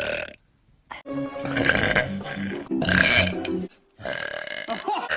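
A woman's long belch, starting about a second in and lasting about two and a half seconds, with music alongside.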